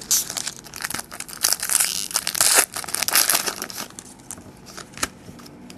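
Foil trading-card pack wrapper crinkling and tearing as it is opened, in a run of rustling bursts over the first four seconds. A single sharp click comes about five seconds in.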